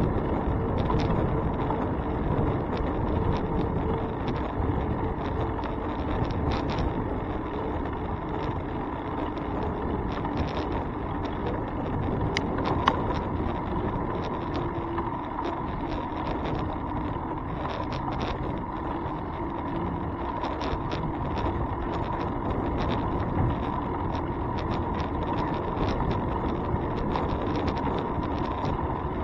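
Bicycle riding noise picked up by a handlebar-mounted camera: a steady rumble of tyres on the road and wind on the microphone, with a faint steady whine, frequent small rattles and clicks over bumps, and one sharper click about 13 seconds in.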